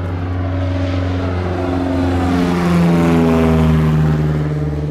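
Propeller airplane flying past, its engine note dropping in pitch as it goes by, loudest a little after the middle.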